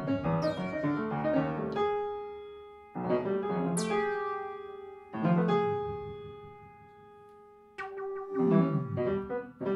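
Free-jazz piano music: quick runs of notes, then chords struck about three and five seconds in that ring and fade away, with more notes starting near the end.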